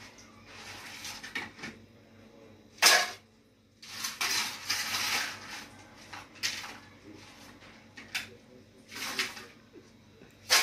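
A metal spoon scraping inside a metal pot, scooping coffee, with several sharp clinks of spoon on metal, the loudest about three seconds in.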